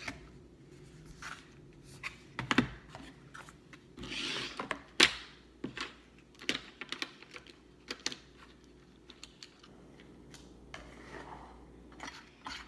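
Plastic contact lens blister packs and small cardboard boxes being handled at a table: irregular light clicks and taps of plastic and card, with a brief rustle and then a louder sharp click about five seconds in.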